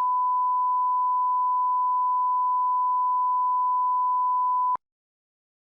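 A single steady, pure electronic beep tone, the classic censor-bleep or test-tone sound effect, held for about five seconds and then cutting off suddenly.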